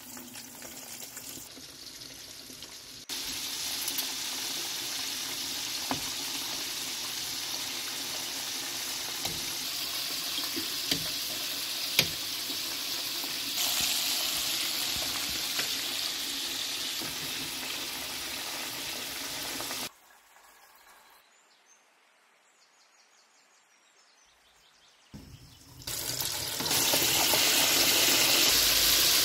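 Flour-coated chicken pieces deep-frying in a pot of hot oil: a steady crackling sizzle with scattered small pops. It drops to near silence for a few seconds about two-thirds of the way through, then comes back louder near the end.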